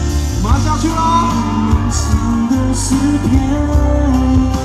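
Live pop music from a band with a singer holding long, sustained notes over a heavy bass line, the voice sliding up into a note about half a second in.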